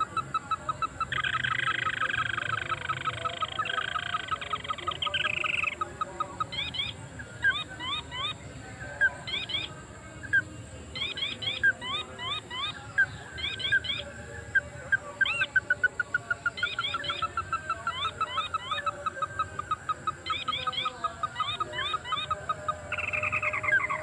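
Crake calling continuously: a rapid even trill of short notes, broken by quick groups of three or four sharp notes, with a harsher rasping call from about a second in for several seconds and again near the end.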